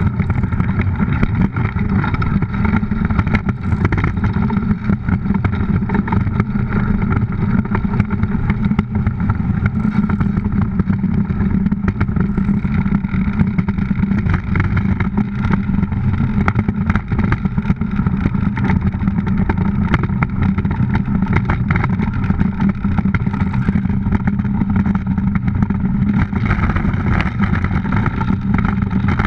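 DN iceboat sailing: its steel runners rumble over the ice in a loud, steady low roar.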